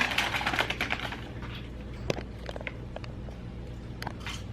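Paper food packaging being handled: light rustling and a few small clicks over a steady low hum.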